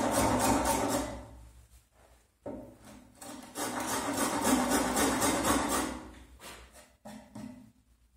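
A small hand tool scraping along the edge of a wooden panel in quick back-and-forth strokes, about five a second, in bouts broken by two short pauses.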